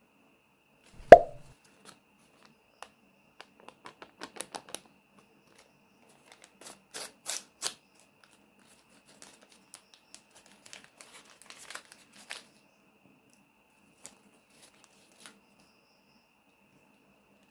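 Paper surprise packet being torn and unfolded by hand, in short bursts of tearing and crinkling, with a few light ticks. A single sharp knock about a second in is the loudest sound.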